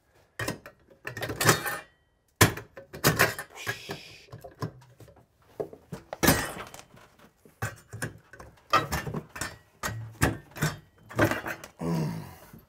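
Irregular knocks, clanks and scrapes of hand tools working at the metal housing of an old bathroom exhaust fan, nailed with 10-penny nails to the ceiling joists, as it is pried loose. The knocks come unevenly, a dozen or more, with short bursts of scraping about four seconds in and near the end.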